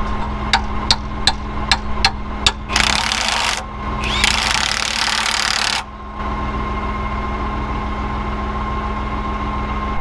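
Impact wrench hammering on plough point bolts in two bursts, about one and one and a half seconds long, after a quick run of about seven sharp knocks. A tractor engine idles steadily underneath throughout.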